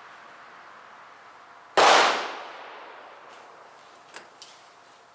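A single shot from a .44 Special Bisley single-action revolver: a sharp, loud crack that rings out and fades over about a second. About two seconds later come two faint clicks.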